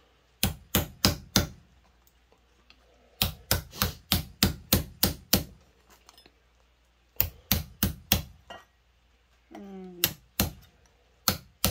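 Ball-peen hammer tapping the steel petals of a hand-forged steel rose to curl them in toward the centre. Sharp taps come in quick runs of four to eight strikes, with short pauses between the runs.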